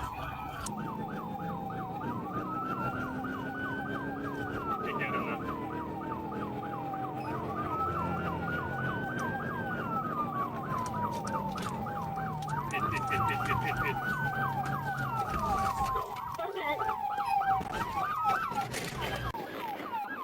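Police car siren wailing, its pitch sweeping slowly up and down about four times, over the steady noise of a vehicle driving at speed.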